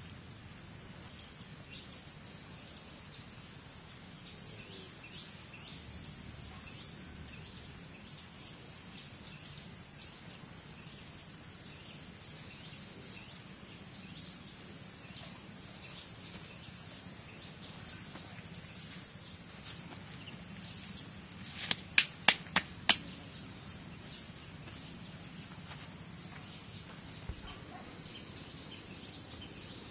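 An insect calling in a steady rhythm of high pulses, about one a second, over outdoor background noise. About two-thirds of the way through, four sharp loud clicks come in quick succession.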